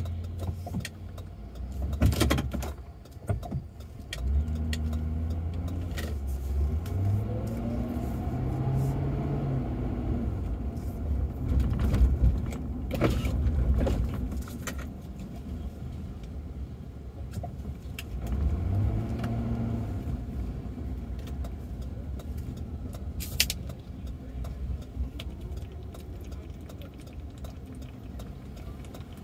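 Ford Crown Victoria's V8 engine and road rumble heard from inside the cabin as the car drives in city traffic. The engine pitch rises twice as the car pulls away and accelerates, with scattered sharp clicks and jingling rattles in the cabin.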